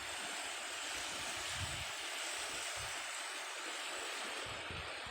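Sea waves washing onto the shore, a broad hiss that swells and then eases off, with low rumbles of wind on the microphone.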